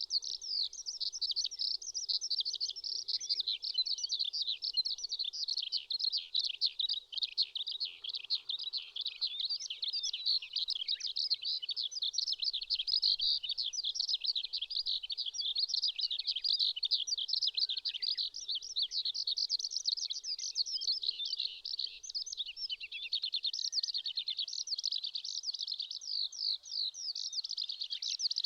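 Eurasian skylark singing: a long, unbroken stream of rapid, high warbling and trilling notes with no pause.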